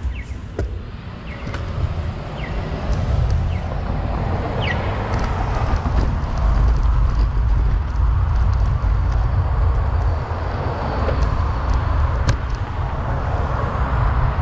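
Heavy wind rumble on the microphone and road noise while riding a bicycle, growing louder about five seconds in. A few short high chirps come in the first few seconds.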